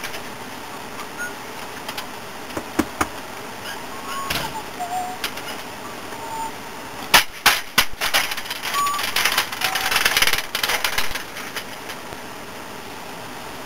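Metal hand truck clanking and bumping on a concrete step, with a cluster of sharp knocks about seven seconds in, then a few seconds of its wheels rolling and scraping across pavement. A few short faint chirps come here and there.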